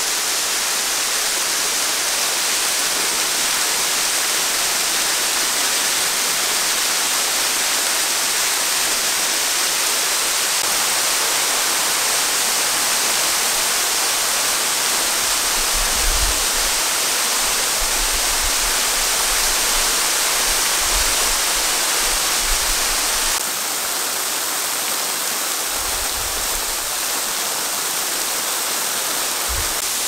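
Copperas Falls, a waterfall, pouring with a loud, steady rush of water. About three-quarters of the way through the rush becomes slightly quieter and duller, and a few brief low thumps come through in the middle and near the end.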